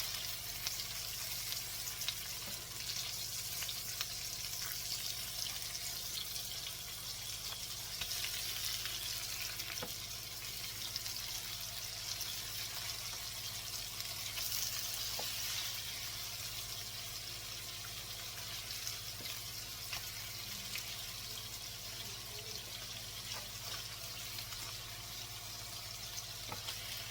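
Ground-chicken patties frying in a pan, a steady sizzling hiss with a few faint ticks and pops.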